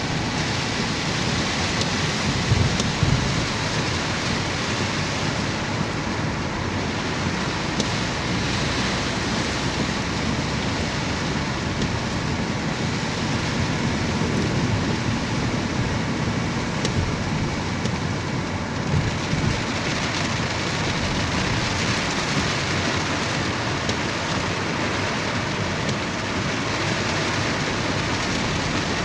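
Rain pouring down steadily, an even hiss throughout, with short low rumbles about three seconds in and again a little past the middle.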